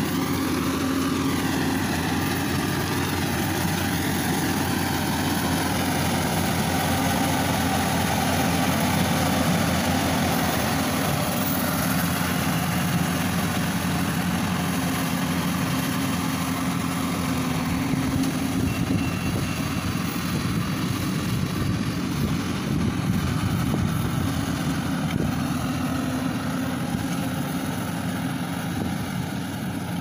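Rice combine harvester's engine running steadily as the machine cuts and threshes, growing a little fainter near the end as it moves away.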